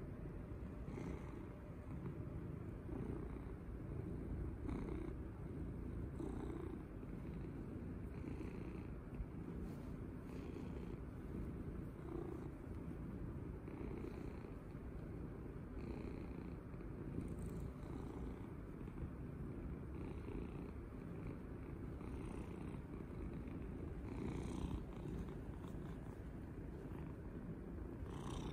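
Domestic cat purring steadily, a continuous low rumble with faint swells every couple of seconds.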